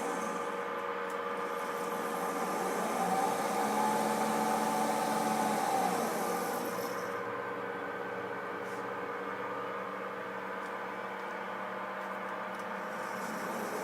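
Delta AC servo motor running on its drive, giving a steady electrical whine. A few seconds in, the pitch rises as the motor speeds up, then falls again as it slows.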